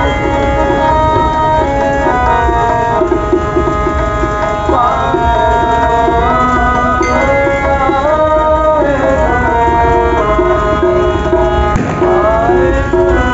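Sikh kirtan: devotional music with a steady tabla rhythm under sustained melodic tones.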